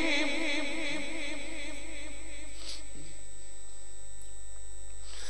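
The echo of a Quran reciter's held, wavering note fading out through the sound system's reverb in the first second, followed by a steady hiss from the PA system in the pause between verses.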